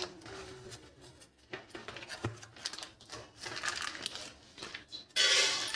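Butter paper crinkling and rustling as it is handled and lifted, in short faint bursts, with a louder stretch of noise about five seconds in.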